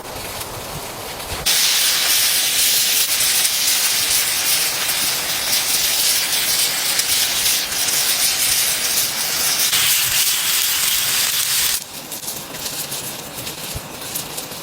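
A loud, steady hiss, like steam or gas escaping, that starts suddenly about a second and a half in and cuts off abruptly about ten seconds later.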